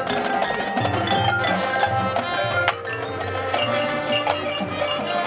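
High school marching band playing its half-time show, with mallet percussion from the front ensemble ringing out over the music. Low held notes come in about a second in.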